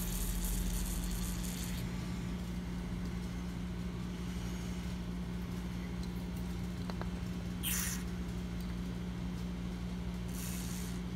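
Aerosol lubricant hissing as it is sprayed into a padlock's keyhole to flush out rust debris: a spray that stops about two seconds in, then two short bursts later on. A steady low hum runs underneath throughout.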